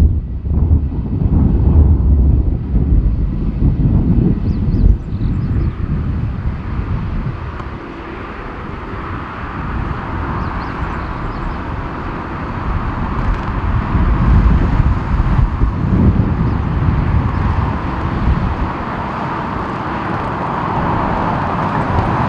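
Boeing 747-400 freighter's jet engines heard with gusty wind rumbling on the microphone for the first several seconds. Then a steady jet rush builds and grows louder through the second half, ending abruptly.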